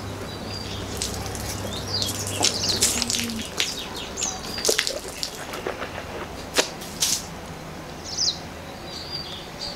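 A person sipping and slurping a drink from a plastic cup, in a series of sharp slurps and clicks over several seconds. Birds chirp now and then in the background.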